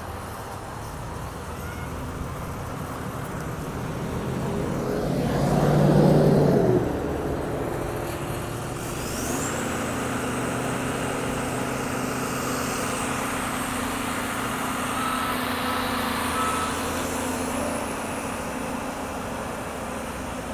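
Diesel engines of rail-mounted track maintenance machines running as they move along the track. The engine sound swells loudest about six seconds in, and a thin high whine rises about nine seconds in and then holds.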